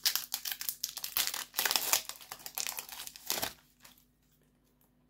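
Foil wrapper of a Yu-Gi-Oh! trading card booster pack being torn open and crinkled by hand, a dense crackling that stops about three and a half seconds in.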